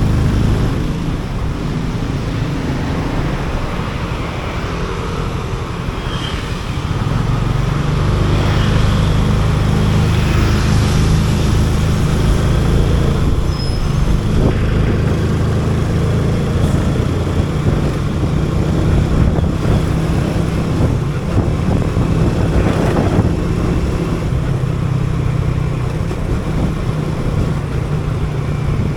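Motorcycle engine running while riding through city traffic, with surrounding traffic noise; the engine gets louder about seven seconds in.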